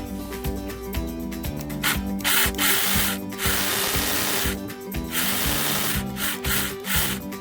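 Cordless electric chainsaw cutting wood in several bursts of about a second each, starting about two seconds in, over background guitar music.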